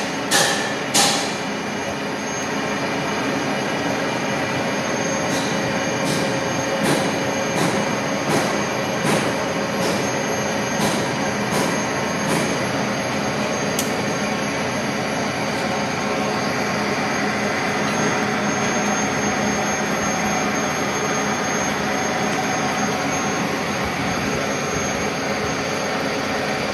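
Kearney & Trecker vertical milling machine running, its end mill lightly grazing a steel differential flange to cut a witness line. A steady machine whirr with a thin high whine, and sharp clicks about once a second through the first half.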